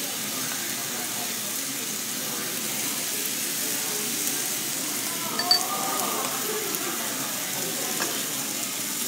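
Sliced beef and pork sizzling steadily on a tabletop gas Korean barbecue grill, with faint restaurant chatter behind it. A brief, sharp clink comes about five and a half seconds in.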